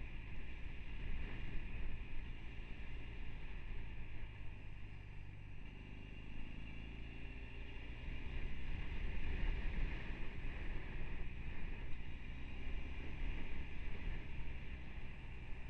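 Motorcycle engine running while riding, with steady wind rush on a helmet-mounted camera's microphone. About halfway through the engine note rises and the sound gets louder.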